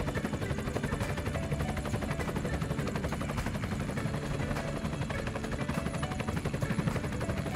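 Helicopter rotor blades chopping in a fast, even beat as the helicopter hovers low and settles toward the pad.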